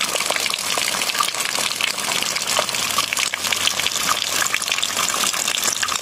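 Thin streams of water falling off a moss-covered rock face and splashing onto wet stones: a steady splashing made up of many small drips.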